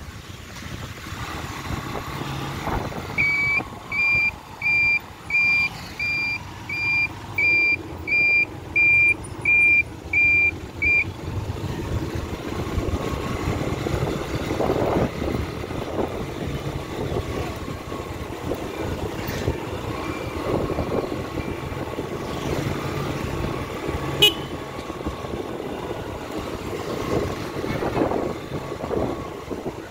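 Road vehicle running with a low rumble, and a loud electronic warning beeper, like a reversing alarm, that sounds about twelve evenly spaced single-pitch beeps, a little under two a second, from about three seconds in to about eleven seconds in. A single sharp click comes near the end.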